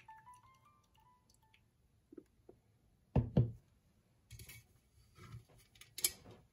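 Two dull knocks, close together, as a glass French press is set down on a wooden countertop about three seconds in, followed by soft rustling and light clicks of hands handling a double-wall titanium mug, with one sharper click near the end. Faint background music notes fade out at the start.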